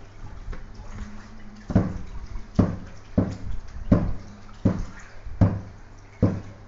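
Rhythmic water splashes, about one every 0.8 seconds, starting a little under two seconds in, over a steady low hum.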